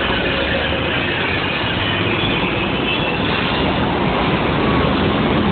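Train running on rails: a loud, steady rumble and rush of noise.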